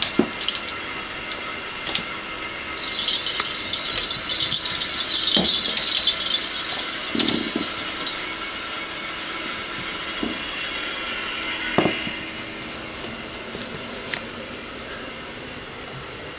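A cat's jingle ball rattling its bell as the cat bats it across the carpet: scattered single jingles, a busy run of rattling a few seconds in, then a few more isolated jingles and soft knocks.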